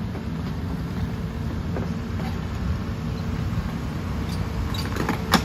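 Hitachi Zaxis 210 excavator's diesel engine running with a steady low rumble. A few sharp metallic knocks come near the end, the loudest just before the end.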